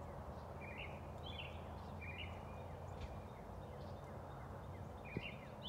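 Songbirds singing faintly: short chirping notes about once a second, a pause in the middle, then more near the end, over a low steady background rumble.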